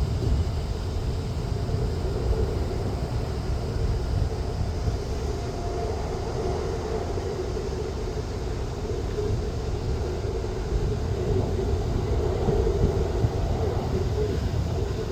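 Jet airliner engines running: a steady rumble with a hum in it, growing a little louder near the end.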